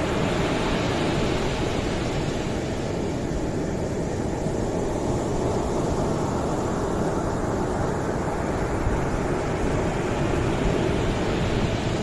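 Ocean surf breaking and washing up a sandy beach: a steady wash of waves, the hiss easing off in the middle and swelling again toward the end as more waves break.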